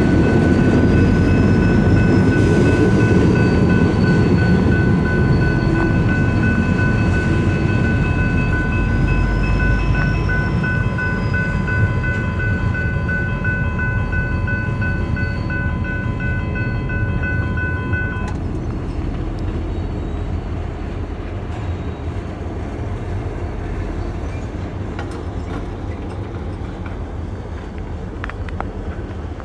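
Freight train rolling away over a grade crossing, its low rumble fading steadily. The crossing bell rings steadily and cuts off suddenly about eighteen seconds in as the crossing clears.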